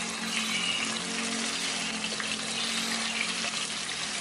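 Hot cooking oil sizzling steadily in a frying pan as raw mackerel tuna steaks are laid into it to fry.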